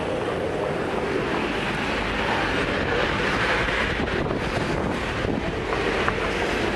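Street ambience: a steady rush of road traffic from the road alongside, with wind buffeting the microphone.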